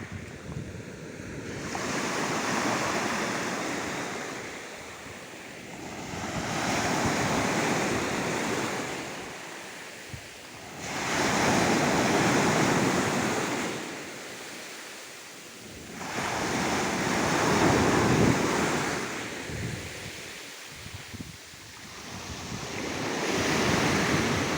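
Sea surf: waves rolling in one after another, each swelling and fading over about five seconds, with wind.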